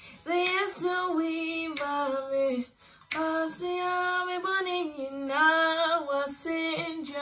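A woman singing an old Ghanaian song in Twi, unaccompanied, in long held notes that slide between pitches, with a short pause for breath about two and a half seconds in.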